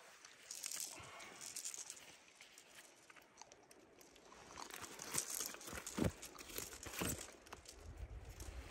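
Faint rustling and handling noises, with two short knocks about six and seven seconds in.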